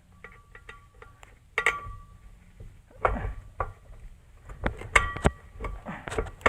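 Metal hand tools and bolts clinking and rattling during work on a car's driveshaft: scattered sharp clinks with a short metallic ring, one about a second and a half in and a cluster near five seconds.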